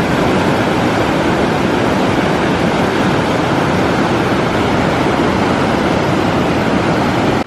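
Steady, loud rush of falling water, like a waterfall at close range. It cuts off abruptly at the end.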